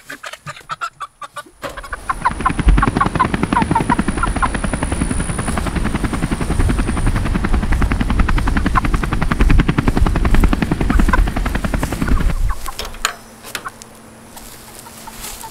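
Chickens clucking, with a loud, rapid fluttering noise under the calls that starts about a second and a half in and stops abruptly near the end.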